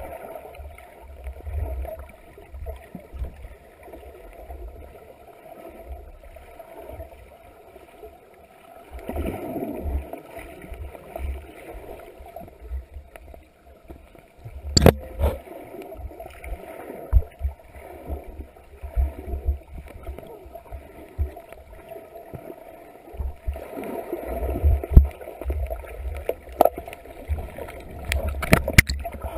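Muffled underwater sound picked up by a camera held just below the water surface: irregular low rumbling and gurgling of moving water, with a few sharp knocks, one about halfway through and several near the end.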